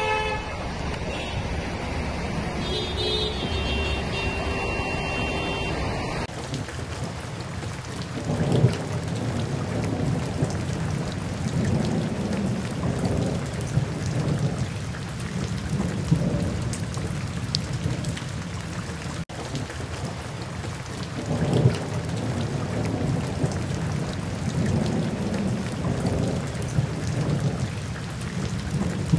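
Steady heavy rain, with low rumbles swelling and fading every few seconds, louder twice. For the first six seconds, before a cut, there is street traffic on a flooded road with a few steady horn-like tones.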